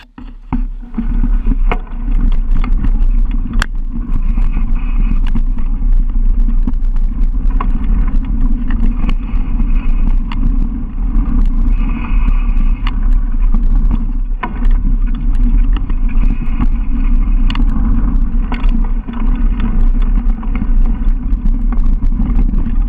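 Mountain bike descending a rough dirt forest trail at speed: heavy wind rush over the camera's microphone, with frequent rattles and knocks from the bike as it hits bumps and roots.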